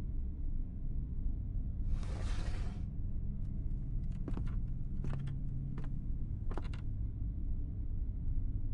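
A person coughing: one longer, breathy cough about two seconds in, then several short, sharp sounds over the next few seconds, over a steady low rumble.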